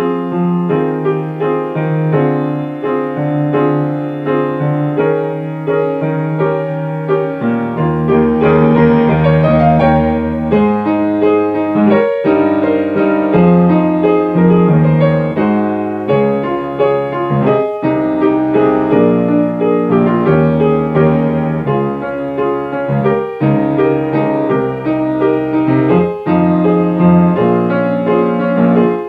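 Solo piano playing the accompaniment to a Japanese school graduation song: steady chords over a moving bass line, growing fuller and louder about eight seconds in.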